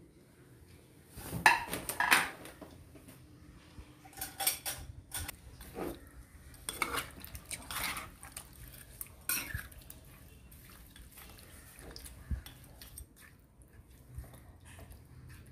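Metal spoon clinking and scraping against a non-stick frying pan while stirring raw chicken pieces, in irregular clatters, loudest about one and a half to two seconds in.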